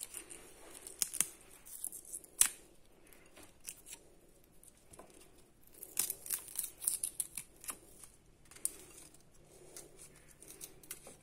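Garlic cloves being peeled by hand: dry papery skins crackling and tearing, with scattered sharp clicks, a louder snap about two and a half seconds in and a busier stretch of crackling around six to seven seconds in.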